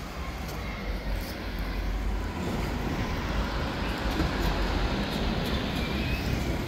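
Low rumble of passing street traffic, growing slowly louder.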